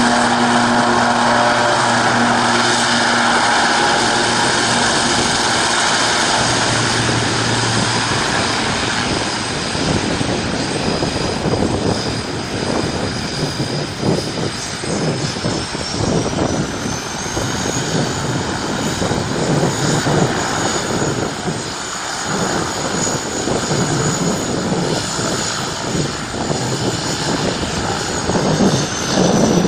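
Turboprop aircraft engines: a steady propeller drone with a high turbine whine. The whine rises in pitch about halfway through as the engines throttle up, over gusty rushing noise in the second half.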